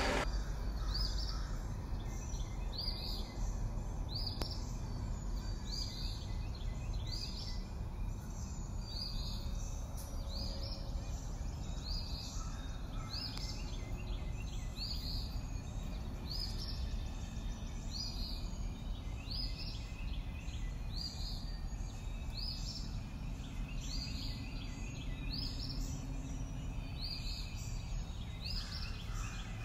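Open-air ambience: a steady low rumble, with a bird chirping repeatedly, short falling high chirps about once a second.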